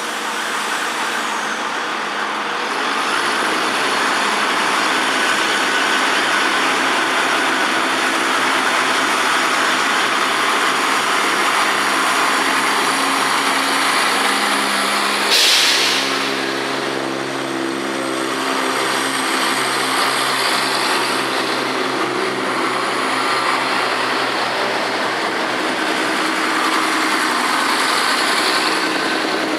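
Train standing or moving slowly, its machinery running with a steady drone and low hum. A short, sharp hiss of released air, typical of an air brake, comes about halfway through.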